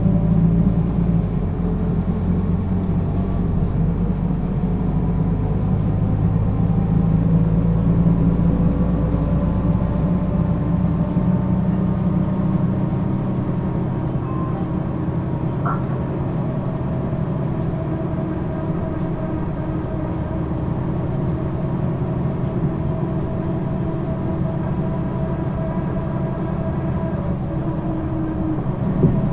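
Diesel engine of a Mercedes-Benz O 530 G Citaro articulated city bus with a Voith automatic gearbox, heard from inside the cabin while under way, running steadily with its note drifting slowly up and down with speed. It is heavier in the first half and eases off later, with a brief click midway and a short knock near the end.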